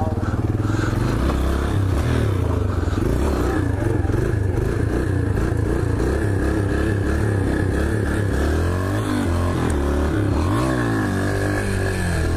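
Dirt bike engine revving as the bike pulls away and rides down the street, its pitch rising and falling with the throttle, with the steepest swings between about nine and eleven seconds in.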